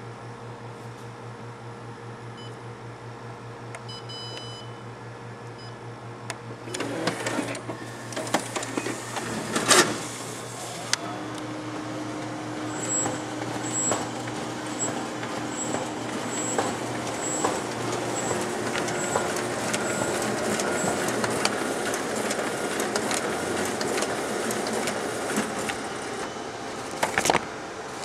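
Xerox 700 Digital Colour Press at work: a steady low hum, then from about seven seconds in the machine starts up with knocks and runs a print job, a steady mechanical running sound full of small rapid clicks, with a couple of loud clunks near the end.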